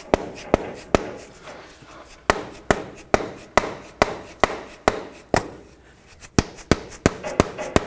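Rubber mallet tapping the outer end of a new front CV axle shaft, a steady series of sharp knocks about two or three a second with a short pause near the end. The axle's inner joint is being driven into the transmission until it fully bottoms out.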